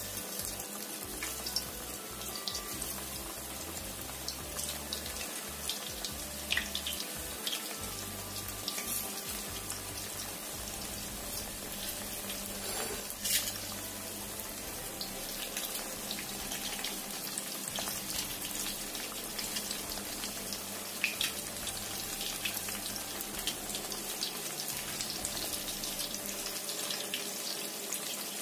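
Tempeh frying in hot oil: a steady sizzle with scattered crackles and pops.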